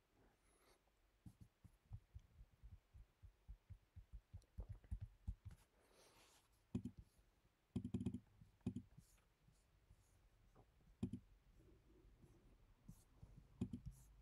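Faint clicking and tapping from hands working a laptop's trackpad and keys: a quick run of light taps over the first few seconds, then a few sharper, scattered clicks.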